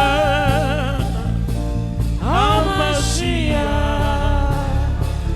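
Gospel worship song: a voice holds a long note with a wide vibrato, then starts another sung phrase about two seconds in, over steady instrumental backing with a low bass.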